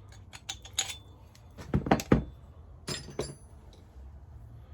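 Metal drill bits and tools clinking and rattling while being rummaged through, with scattered light clicks, two heavier knocks about two seconds in and a short ringing metallic clink soon after.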